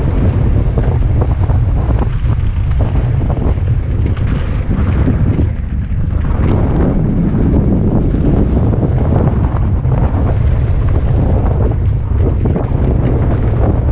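Wind buffeting the microphone of a camera riding along on a downhill mountain bike run, over a steady rumble of tyres on rough trail broken by frequent short rattles and knocks from the bike.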